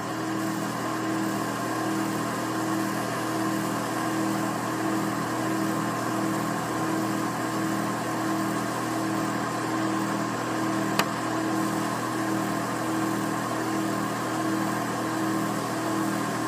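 Steady mechanical hum with a slow, regular pulsing and a single sharp click about eleven seconds in.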